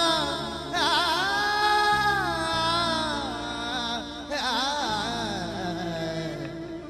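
Balochi song: a singer holds long, wavering, ornamented notes over a steady instrumental backing, with a new phrase starting about a second in and another about four seconds in.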